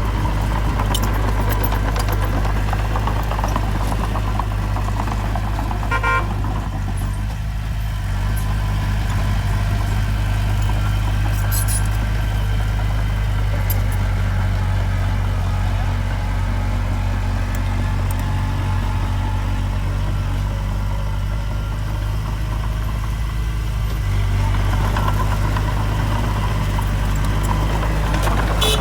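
Heavy diesel engine of earthmoving machinery running steadily with a low drone. A brief pitched tone comes about six seconds in.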